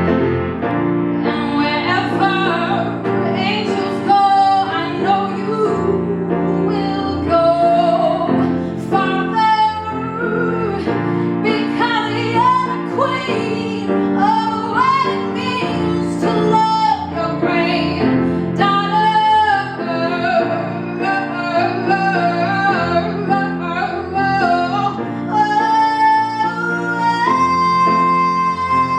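A woman singing a ballad over piano chords, her voice gliding through the melody and settling on a long held high note near the end.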